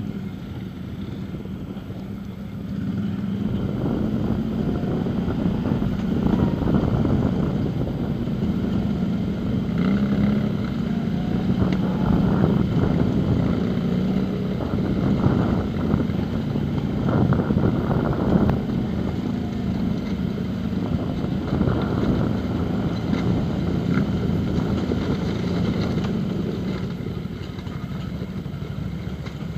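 Quad bike engine running, pulling harder from about three seconds in and rising and falling with the throttle. Scattered knocks and rattles come from the machine jolting over a rough stony track.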